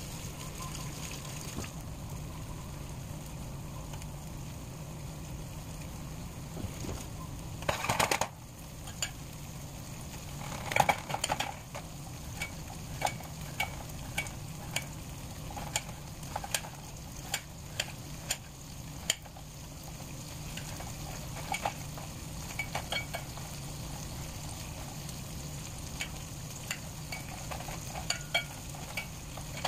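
Kitchen knife cutting an onion on a ceramic plate: irregular sharp clicks and taps of the blade on the plate, with a couple of louder clattering bursts about eight and eleven seconds in. Underneath runs a steady sizzle of sliced sausage frying in a pan.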